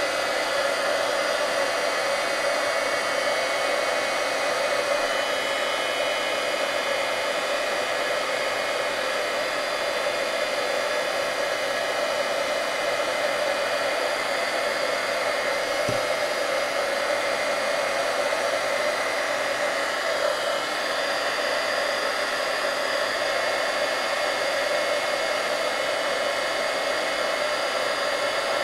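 Craft embossing heat tool blowing steadily, a hair-dryer-like rush with a constant hum, as it melts silver embossing powder on a stamped card.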